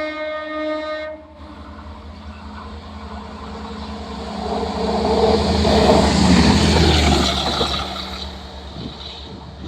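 Indian passenger train's locomotive horn sounding one steady blast that stops about a second in, then the train rushing past, its rumble building to its loudest just past the middle and fading toward the end.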